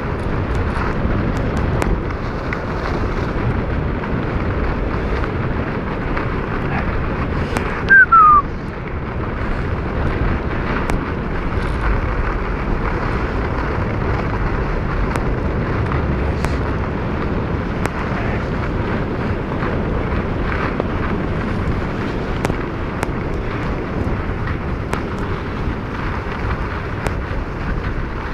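Steady rumbling hiss of wind buffeting a phone microphone outdoors. A short, loud falling whistle is heard about eight seconds in.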